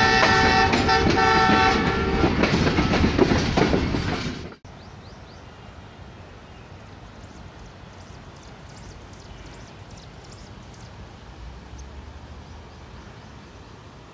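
A train horn sounding in several short blasts over the rumble and clatter of a moving train, cutting off sharply about four and a half seconds in. Then a steady, much quieter outdoor hush with faint high chirps.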